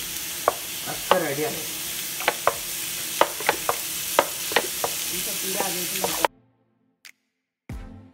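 Sliced onions and garlic-ginger paste frying in coconut oil in an aluminium pot: a steady sizzle with the metal spoon clinking and scraping against the pot. The sound cuts off suddenly near the end.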